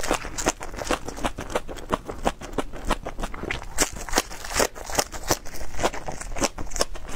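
Raw green onion (scallion) stalks being bitten and chewed close to the microphone: a rapid, irregular run of crisp, wet crunches.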